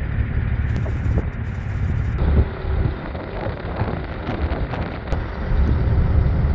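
Wind buffeting the microphone over a steady low rumble, with a few faint clicks in the middle.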